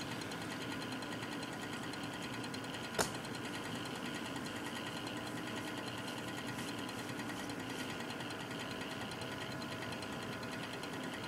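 Cooler Master Real Power Pro 550 W computer power supply running with a steady fan hum and a rapid, fast-repeating ticking, with one sharp louder click about three seconds in.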